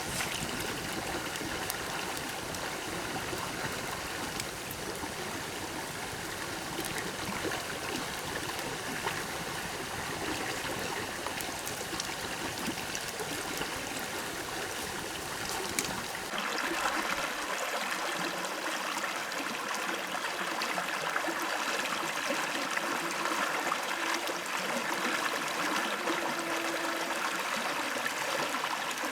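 Running water of a stream, a steady rushing and trickling. About 16 seconds in it changes abruptly and becomes louder and brighter.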